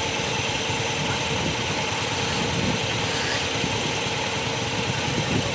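Vehicle engine idling steadily, under an even hiss.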